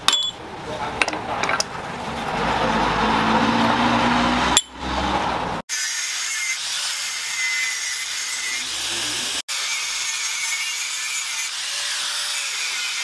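Angle grinder with a thin cutting disc cutting through the steel body and spring seat of a car shock absorber: a steady, high-pitched grinding over the latter part. Before it come a few knocks and a rising machine noise.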